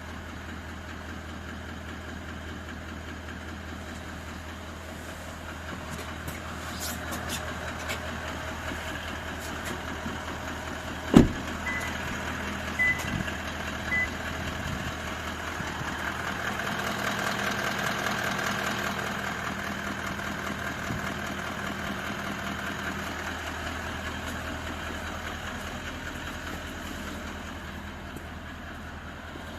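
Toyota 1VD-FTV 4.5-litre V8 turbodiesel running warm at idle, with the knock that the owner says appears or grows once the engine reaches operating temperature and that mechanics fail to hear. A single sharp knock about a third of the way in, then three short beeps, and the running grows louder for a while in the middle.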